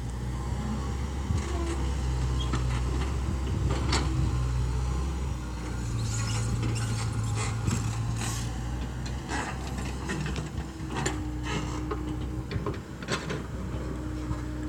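Komatsu PC70-8 excavator's diesel engine running steadily, its note rising a little about five seconds in, with occasional sharp knocks from the machine at work.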